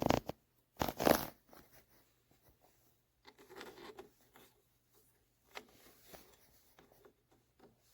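Handling noises as cables and connectors on a 3D printer are checked: two loud rustling scrapes in the first second and a half, then fainter scratches and taps, over a faint steady low hum.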